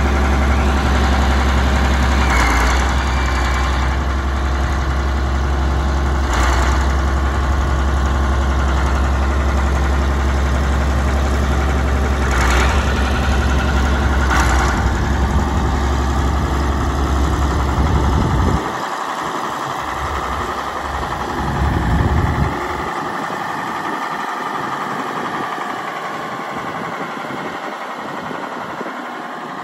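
Case 970 tractor engine idling steadily. About two-thirds of the way through the deep low rumble falls away and the sound gets quieter.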